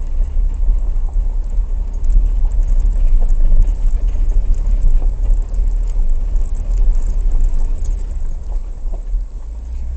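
Inside a Jeep's cabin while it drives a dirt forest road: a steady low rumble of engine and tyres, with scattered small ticks and rattles over it.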